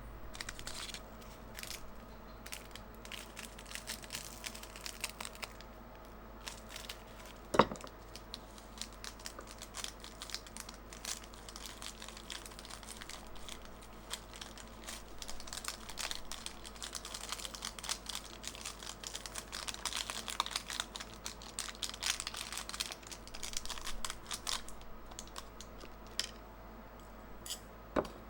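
Irregular crinkling and rustling with many small clicks and taps, as of packaging being handled, and one sharp knock about seven and a half seconds in.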